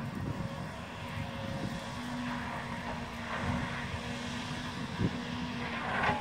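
Tigercat 250C knuckleboom log loader running, its engine a steady low rumble with a faint hum over it that comes in about two seconds in. There is a sharp knock about five seconds in and a louder clatter near the end as it works the logs.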